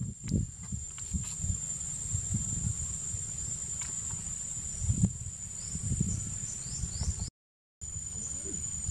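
Outdoor ambience: insects keep up a steady high-pitched drone over irregular low rumbling, with a few short high chirps in the second half. The sound drops out completely for about half a second near the end.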